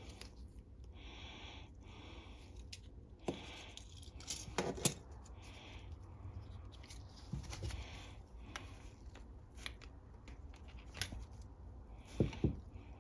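Small metal clicks and taps from handling carburetor parts and a jet-cleaning wire while clearing the carburetor jets, with a few sharper knocks about halfway through and again near the end.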